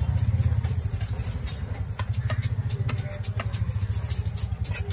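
An engine idling steadily close by, with a fast, even low putter. Over it come scattered sharp clicks and scrapes of a knife working along a seer fish on a wooden chopping block.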